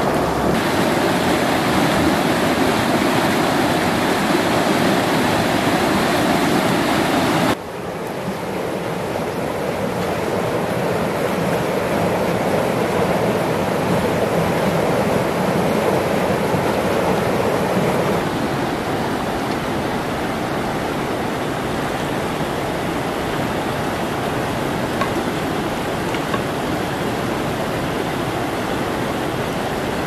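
Steady rushing of white water through rocky stream rapids. The sound drops suddenly about a quarter of the way in and then builds back up.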